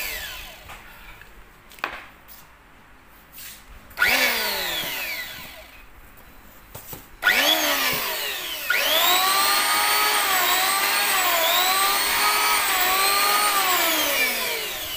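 Makita 82 mm electric hand planer motor running free with no wood under the blade. It is winding down at first, then is switched on in two short blips that each spin up and coast down. About nine seconds in it runs steadily for some five seconds, then switches off and winds down near the end.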